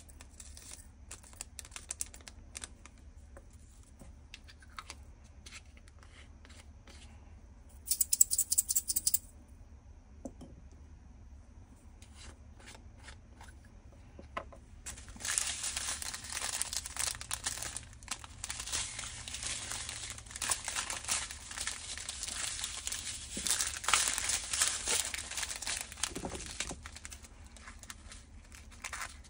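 Plastic handling sounds while transferring diamond-painting drills: scattered small clicks of plastic bottles and caps, and a brief loud rattle of the tiny resin drills in a plastic bottle about eight seconds in. From about halfway on, plastic bags of drills crinkle and rustle steadily as they are handled.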